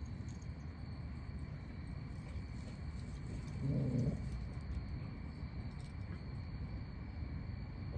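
A dog and a kitten playing on grass, with one short, low animal vocal sound about halfway through. Steady faint insect chirring runs underneath.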